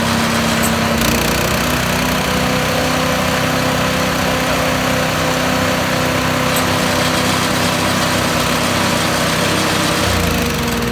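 Harbor Freight Predator 212cc single-cylinder four-stroke engine running steadily at speed on a Troy-Bilt chipper shredder. The engine note briefly sags near the end.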